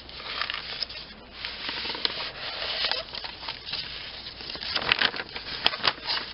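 Paper rustling and crinkling as a mailing envelope is handled and sheets of painted craft paper are pulled out of it, with a few sharper crackles near the end.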